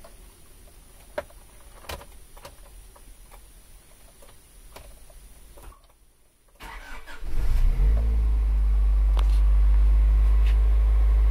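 A few faint clicks, then a third-generation Honda Prelude's freshly rebuilt four-cylinder engine cranks and catches on the button about seven seconds in. It settles straight into a steady, smooth, fast cold idle.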